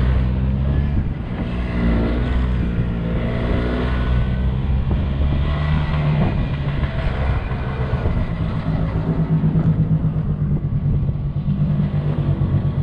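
Yamaha Bravo snowmobile's 250cc single-cylinder two-stroke engine running under load while riding, its pitch rising and falling several times as the throttle changes.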